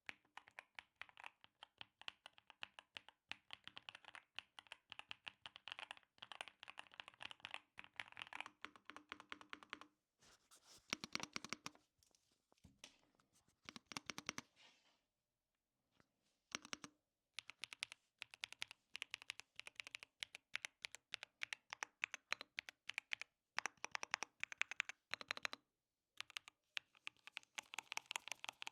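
Typing on a YUNZII AL65 aluminium 65% mechanical keyboard with factory linear switches: rapid runs of keystrokes broken by short pauses, a sound the reviewer calls creamy.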